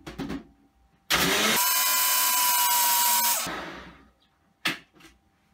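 Ninja personal blender run in one short burst to blend a yogurt, banana and juice smoothie: a few knocks as the cup goes onto the base, then the motor runs at full speed for about two seconds with its whine rising slightly, and spins down. A single knock follows near the end.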